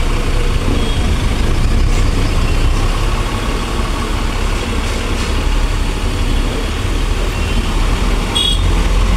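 Bus engine running with a steady low rumble, heard from inside the cab as the bus drives slowly along a rough road.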